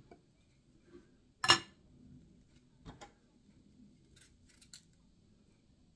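Eating sounds: a utensil clinks sharply against a plate about one and a half seconds in, with a lighter clink near three seconds. Faint crisp clicks of eating follow near the end.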